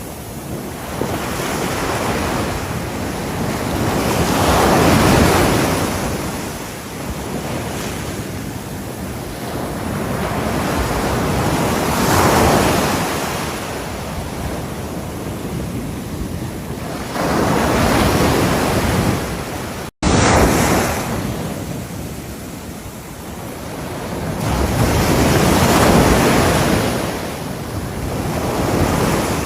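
Ocean waves breaking on a shore: a steady wash of surf that swells up four times as waves come in and break. The sound cuts out for a split second about two-thirds of the way through.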